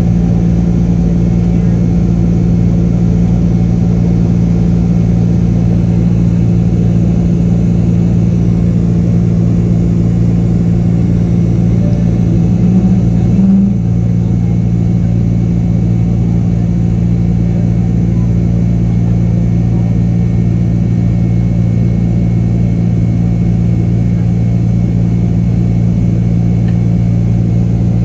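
Boeing 767-300ER's twin turbofan engines heard inside the cabin from over the wing while climbing out: a steady loud drone with a strong low hum, dipping slightly about halfway through.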